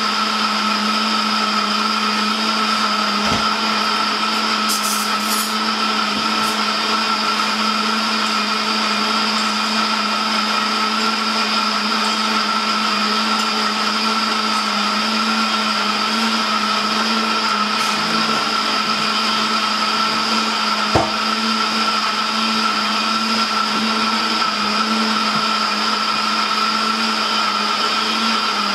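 Instant Ace countertop blender running steadily, blending a smoothie of bananas, ground flax seed, hemp and water: an even motor hum with a high whine over it.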